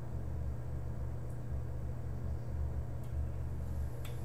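A steady low hum with no speech, and a single short click near the end.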